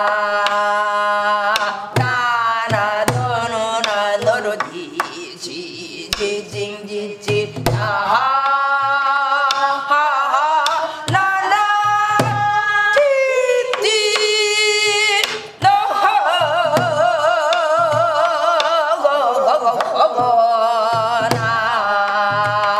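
Korean gueum: a woman singing a wordless melody in Korean traditional style, with wide vibrato on long held notes, over regular strokes of a Korean drum.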